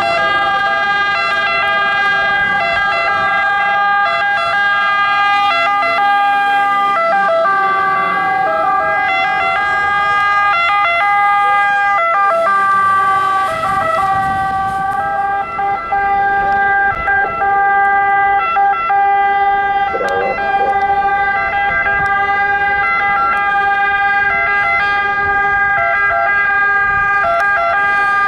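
Emergency-vehicle sirens of a fire engine and a medical response car sounding without a break, several two-tone sirens overlapping in a steady alternating wail.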